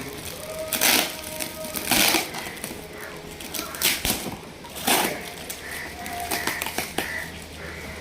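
Shipping package being torn open by hand: four short crackling rips spread through it.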